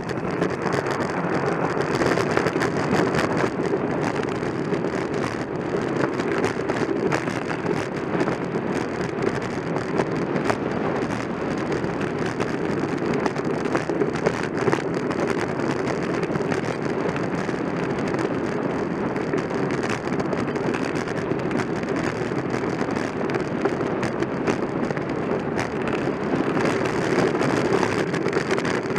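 Steady, rough rushing noise of wind and travel over the ice, with a grainy texture and no engine tone. It is even in loudness throughout.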